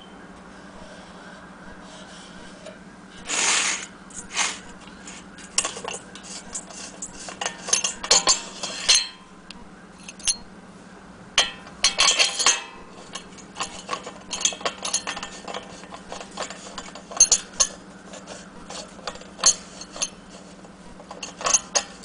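Irregular metal clinks, knocks and scrapes as a vintage Tilley R1 paraffin heater is handled and turned over on a hard tiled surface, its metal body and brass fittings knocking against the tiles. A steady low hum runs underneath.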